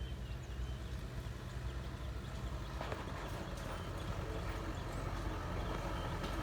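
Diesel engine of a heavy machine running steadily, growing slightly louder.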